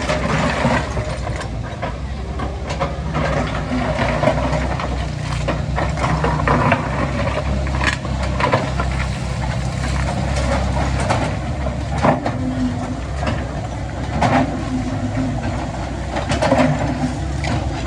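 Heavy construction machinery's diesel engine running steadily, with scattered sharp knocks from the work.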